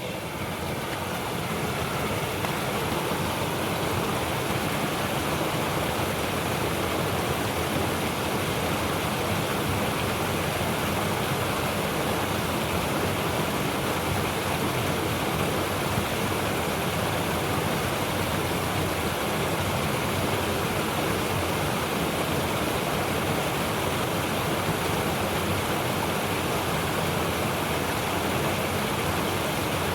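Mountain river water rushing steadily over rocks, a continuous full rush with a deep low rumble. It fades in over the first two seconds.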